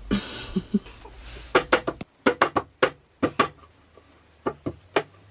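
A hammer knocking wooden dowels into the panels of an IKEA KALLAX shelf: a quick, uneven run of sharp knocks, then three more near the end. A steady hiss in the first two seconds cuts off suddenly.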